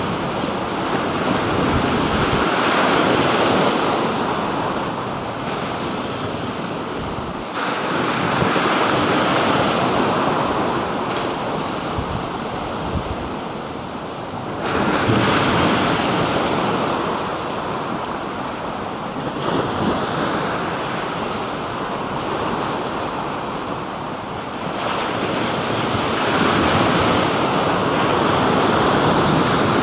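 Black Sea waves washing onto the shore, the surf swelling and easing in several surges, with some wind on the microphone.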